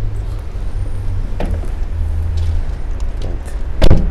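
Van rear door closed with a light knock about a second and a half in, then shut with one loud slam near the end, over a steady low rumble. The door is one that the inspector says needs adjusting.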